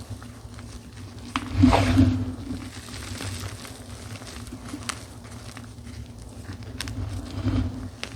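Dyed gym chalk being crushed by hand, crunching and crumbling, loudest about a second and a half in and again near the end, with a few sharp clicks between. A low steady hum runs underneath.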